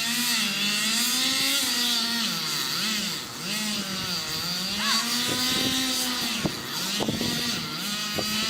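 Two-stroke chainsaw running near full throttle while cutting into an oak trunk, its pitch sagging and recovering again and again as the chain loads up in the wood. A few sharp clicks come in the second half.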